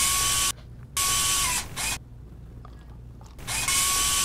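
Whirring robot-motor sound effect for a cardboard robot arm moving, in three bursts: one ending about half a second in, a short one about a second in, and a longer one starting near the end. Each burst is a steady high whine over hiss.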